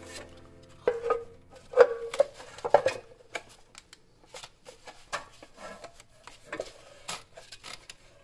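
Metal clanks and clicks as the valley pan cover of a BMW 4.8L V8 is pried loose and lifted out by hand: a few sharp knocks with a brief ring in the first three seconds, then lighter scattered taps.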